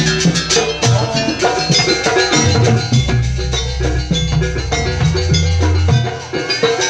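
Live jaranan accompaniment: a Javanese percussion ensemble playing busy, rhythmic drumming with ringing tuned metal percussion and sustained low tones.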